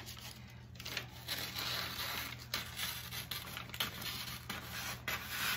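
Scissors cutting through kraft paper, a run of snips with the paper crinkling and rustling as it is trimmed.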